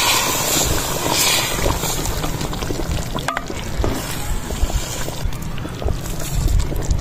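Thick curry simmering in an open clay pot while a wooden spoon stirs through it, with a few scattered clicks and a low rumble of wind on the microphone.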